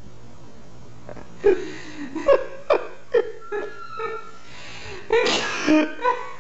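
A small puppy barking in short, high yips, a couple of times a second, starting about a second and a half in.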